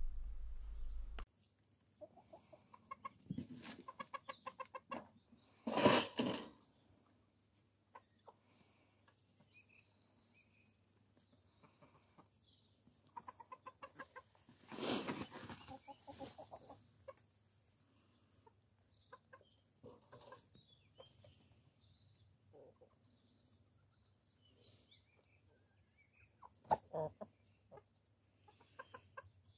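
Chickens, hens and roosters, clucking in short quick runs, with a few louder calls, the loudest about six seconds in.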